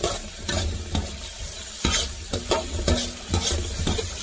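Diced red bell pepper sizzling in oil in a metal paella pan, stirred with a wire skimmer that scrapes and knocks against the pan about ten times.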